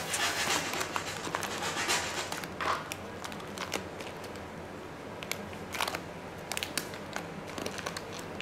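Black carbon-look adhesive sheet being peeled off a panel and crumpled in the hand: a dense crinkling for about the first three seconds, then scattered crackles as the last pieces come away.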